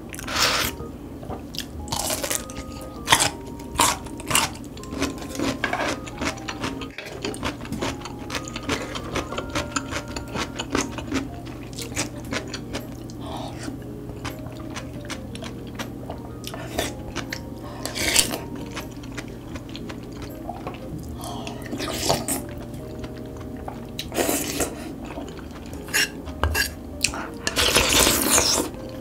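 Close-miked eating sounds: loach soup slurped from a large spoon, chewing, and utensils clinking against the bowl, in scattered short strokes with a longer slurp near the end.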